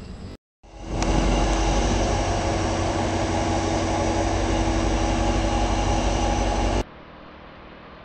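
Diesel engines of a pair of coupled Vossloh locomotives running with a steady drone and a higher-pitched whine. It starts after a brief gap about half a second in and cuts off suddenly near the end, leaving a quieter steady rumble.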